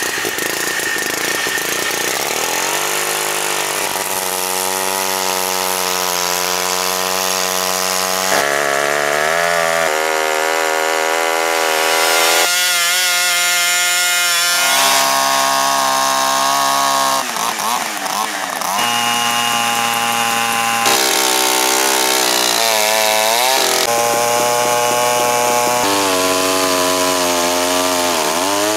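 Two-stroke chainsaws running at high revs while cutting slices off logs. The engine pitch sags and recovers at times, and the sound switches abruptly every few seconds from one saw to another.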